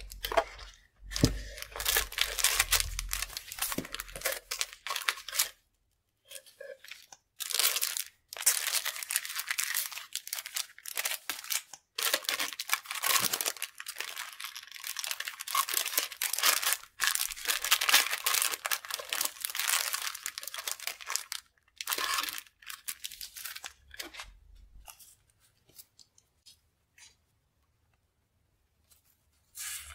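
Clear plastic sticker-pack sleeves and sticker sheets crinkling and rustling as hands sort through them. The rustling comes in long spells with short breaks and trails off to faint handling over the last few seconds.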